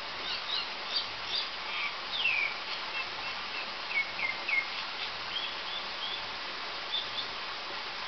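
Myna calling: a run of short chirps and whistled notes, several falling in pitch, with a last pair of notes near the end. Under it runs a steady rush of water.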